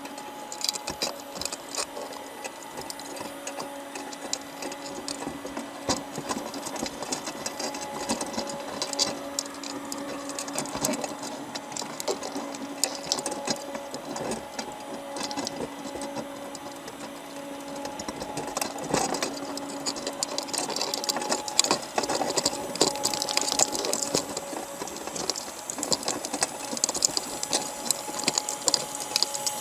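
Crabs clicking and scraping as they clamber over each other and the wire mesh of a crab trap, heard underwater: a dense, irregular crackle of shell and leg taps that gets busier in the second half, over a faint steady hum.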